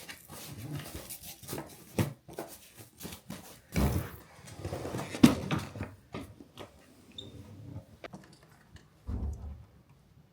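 Someone eating a bowl of ramen: tableware clicking and knocking against the bowl, with louder noisy bursts about four and five seconds in.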